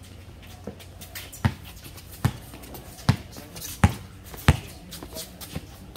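Basketball dribbled on a hard court: a run of about five sharp bounces, roughly one every 0.7 seconds, with a few fainter ones near the start and end.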